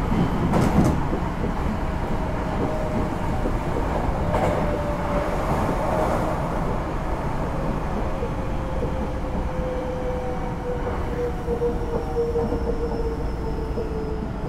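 Inside a Hankyu 9000 series electric train running: steady wheel and rail rumble with a few sharp clicks near the start and about four seconds in. From about eight seconds in, a thin whine from the Toshiba IGBT VVVF inverter falls slowly in pitch as the train slows for the next station.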